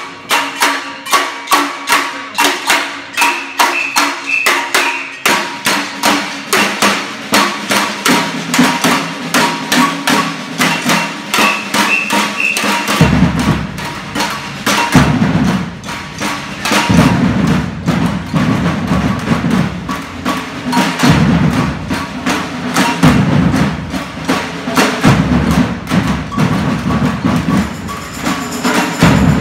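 Batucada drum ensemble playing a steady groove. In the first half, only the smaller stick-struck drums play a rapid, even pattern. About halfway through, the deep surdo bass drums come in and the groove fills out.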